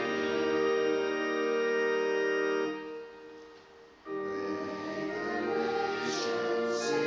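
Church organ playing a hymn with the congregation singing. A held chord dies away a little under three seconds in, and after about a second's pause the organ and voices start again.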